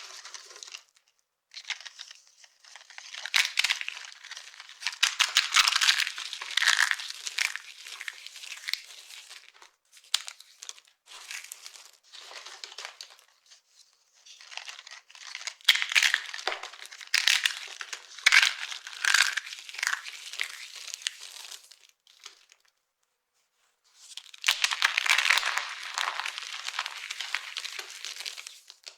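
Dry, brittle soap being crushed and crumbled by hand, with dense crunchy crackling. It comes in three long bouts separated by short pauses, the longest pause about 22 to 24 seconds in.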